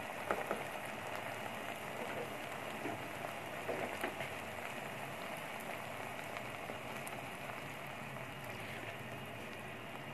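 Onion and tomato masala sizzling and bubbling steadily in a non-stick pan, just loosened with a little water. A few light clicks sound near the start and around four seconds in.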